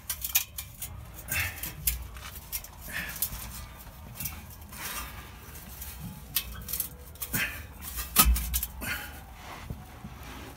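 Scattered metallic clinks and knocks from a stainless exhaust pipe being pushed into its slip joint and worked against its hanger, with one heavier knock about eight seconds in.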